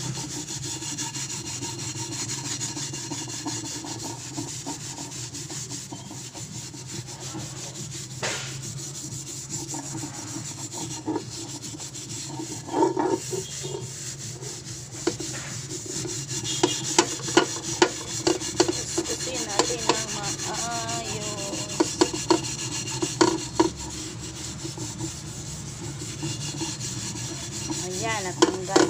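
Steel wool scouring pad scrubbing the inside of a metal frying pan coated in cleaning foam: a steady rasping scrub, with scattered sharp knocks through the middle and later part.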